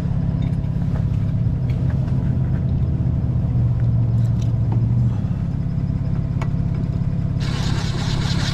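An engine idling with a steady low drone. About seven seconds in, a loud hiss joins it.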